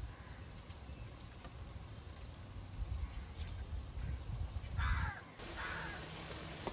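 Two short bird calls about five seconds in, the first louder, over a low rumble.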